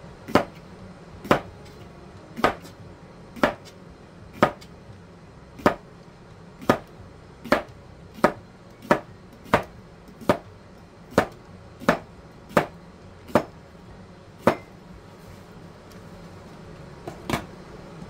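Cucumbers being chopped with a hand-held kitchen cutting gadget, each stroke a sharp knock on the cutting board. About one chop a second, a little faster in the middle, then a pause before one last chop near the end.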